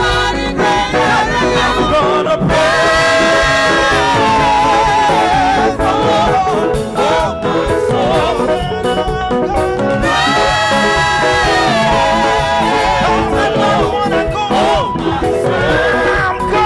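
Congregational gospel praise music: a live band with drums plays under held, wavering sung notes from the worship leader and singers.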